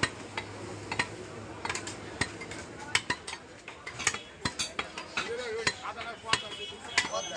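Heavy butcher's knife chopping beef on a wooden stump chopping block: a run of sharp, irregular knocks, about two or three a second.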